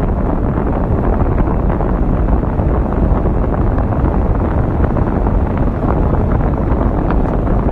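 Wind from an open car window buffeting a phone's microphone while the car is moving: a loud, steady, low rumble, too loud to hear the voice over.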